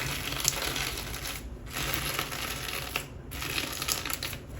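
Lava rock slime being squeezed and worked by hand: dense crackling crunch of pumice-like lava rocks pressed in slime, in three stretches of about a second and a half with short pauses between.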